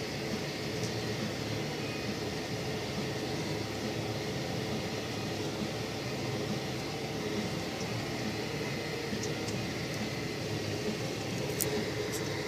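Tractor engine running steadily under load, heard from inside the cab, while it tows a land-levelling scraper through soil. Constant rumble with a steady hum, and a few faint ticks near the end.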